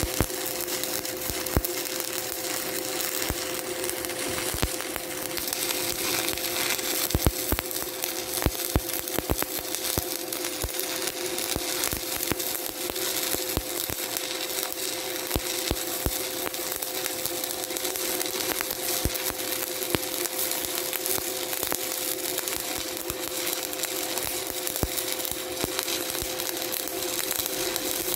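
Shielded metal arc (stick) welding arc burning steadily, with a continuous crackle and many sharp pops, over a steady hum. The arc is laying the final cap pass of a vertical-up 3G test plate, electrode positive at about 110 amps.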